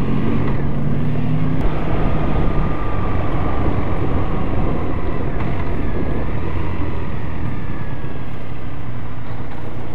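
Triumph Bonneville T100's air-cooled parallel-twin engine running steadily while riding. After about two seconds, wind noise on the helmet-mounted microphone rises and largely covers it.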